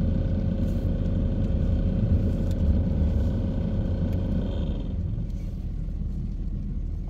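Car cabin noise while moving slowly in traffic: low engine and road rumble, with a steady hum that fades out about two-thirds of the way in.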